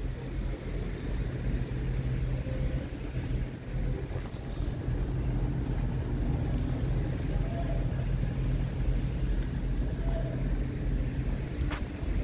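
Scania R tractor unit's diesel engine idling steadily, a low even hum.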